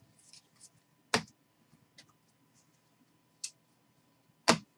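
Baseball trading cards being handled and sorted by hand: light rustling, then sharp clicks and snaps of the cards, loudest about a second in and near the end, with a softer one in between.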